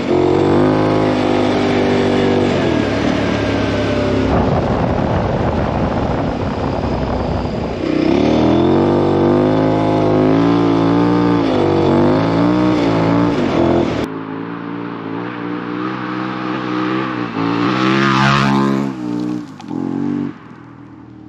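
KTM 1090 Adventure R's LC8 V-twin engine, fitted with a Super Duke exhaust, being ridden hard. Its pitch climbs and drops again and again as it accelerates. About two-thirds of the way through it falls off suddenly, then rises once more before easing near the end.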